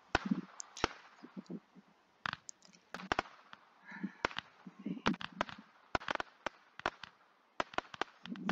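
Rapid-fire Roman candles firing: an irregular run of sharp pops, about two or three a second, each star launching with a low thump.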